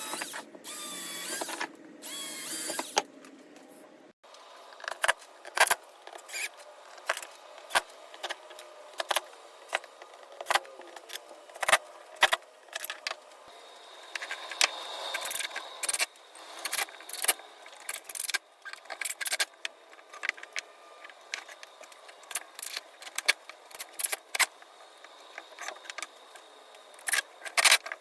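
Irregular clicks, taps and knocks of MDF pieces and tools being handled while a mold form is assembled.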